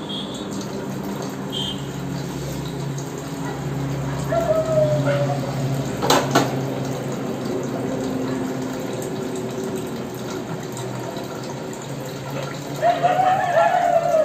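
Kitchen tap running steadily into a sink as a small steel pot is rinsed under it, with a single sharp click about six seconds in.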